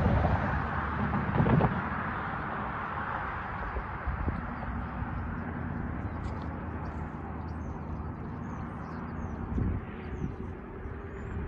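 Road traffic at a railroad crossing: a car passes in the first couple of seconds, then a steady traffic rumble. Small birds chirp repeatedly through the second half.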